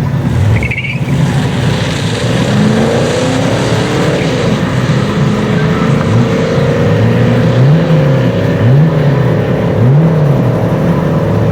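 Holden VP Commodore with its stock automatic accelerating hard, the engine pitch climbing and dropping several times. A brief high chirp comes about a second in.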